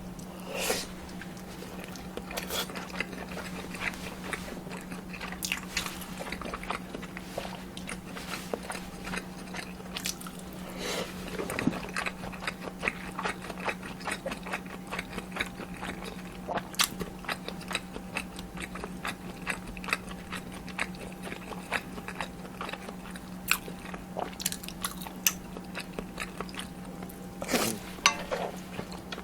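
Close-miked eating of kimchi ramen and dumplings: steady chewing and biting with many small wet mouth clicks, and a few longer, louder sounds, one near the start, one about eleven seconds in and one near the end.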